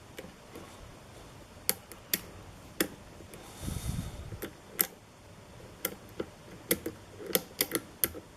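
Lock pick and tension wrench working the pins of a pin-tumbler challenge lock: scattered light metallic clicks and ticks as the pick lifts and scrapes the pins, with a short soft scraping rush about three and a half seconds in.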